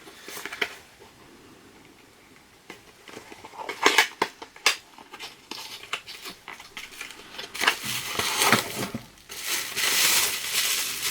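A small gift box and its wrapping being opened and handled by hand: scattered clicks and knocks, then steady rustling and crinkling of packing material during the last couple of seconds.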